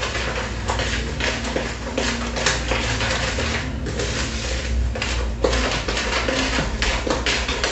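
A spatula scraping and knocking around a large plastic mixing bowl as a batter of eggs, sugar, cream and margarine is stirred, in quick repeated strokes of about two or three a second.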